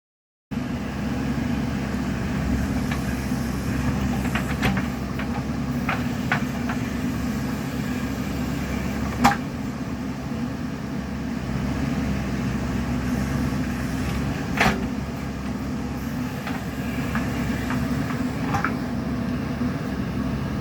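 Diesel engine of a JCB 3DX Super backhoe loader running steadily, with scattered metallic clanks from the machine, two of them louder, about 9 and 15 seconds in.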